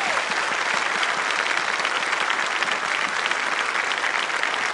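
Audience applauding, a steady dense patter of clapping.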